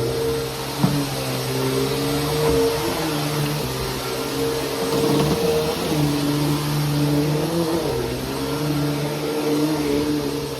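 Bissell PowerForce Helix bagless upright vacuum running steadily, its motor hum stepping up and down in pitch, with a single click about a second in. The owner says the motor is already failing and arcing badly.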